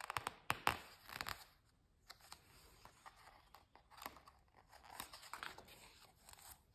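Faint paper handling: small crackles and clicks of a large picture book's pages under the hand, then the rustle of a page being turned over about four to five seconds in.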